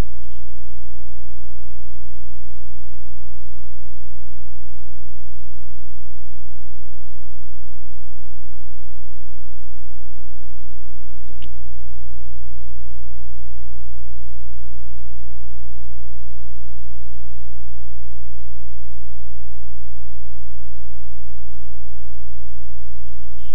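Loud, steady electrical mains hum with several low pitches stacked, over a layer of hiss. A single sharp click about eleven seconds in.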